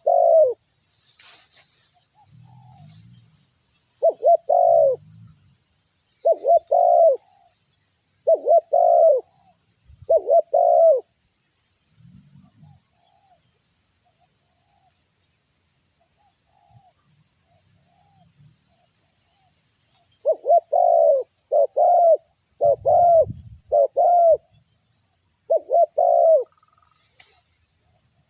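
Spotted dove cooing: short phrases of two or three deep, arching coo notes, repeated several times in the first eleven seconds and in a quicker run from about 20 to 26 seconds. A steady high-pitched buzz runs underneath.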